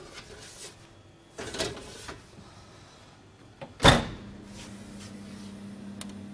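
Commercial oven door shut with a sharp bang about four seconds in, after a short scrape earlier on. Right after the door closes, a steady low hum of the oven's fan starts up.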